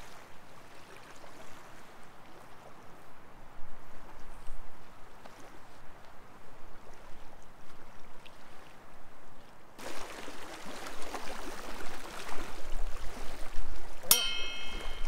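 Wind buffeting the microphone and small waves lapping at the shore, getting louder and brighter about ten seconds in. Near the end, a brief ringing ping.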